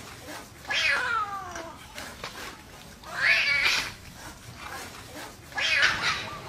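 A kitten yowling in distress as monkeys grab and pull at it: three loud cries a couple of seconds apart, the first sliding down in pitch.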